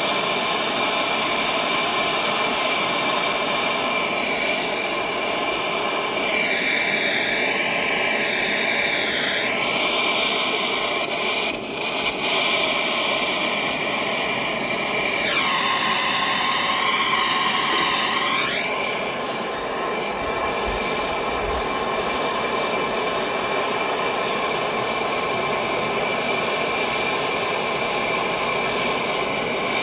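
Handheld gas torch burning steadily, its flame aimed into a crucible to melt sterling silver: an even rushing noise with a few faint steady tones above it, dipping briefly about eleven seconds in.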